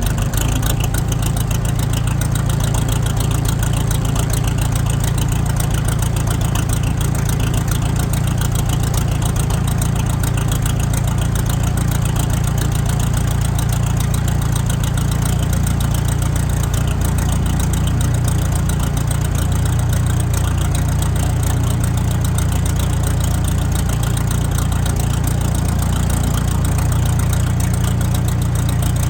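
International 674 tractor's diesel engine running steadily, a loud, even low drone with no change in speed.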